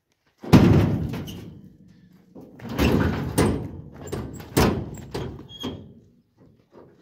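Metal bangs and clanks from a pickup truck's bed and steel cage rack as a man climbs up into the bed and moves about. There is a heavy bang about half a second in, then a cluster of several more bangs and rattles over the next few seconds, each ringing briefly.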